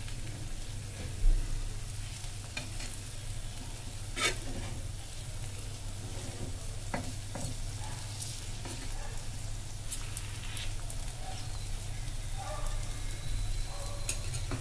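Vegetable-and-semolina batter sizzling in oil on a hot non-stick pan, with a few light clicks and scrapes of a steel spatula against the pan. A dull thump about a second in.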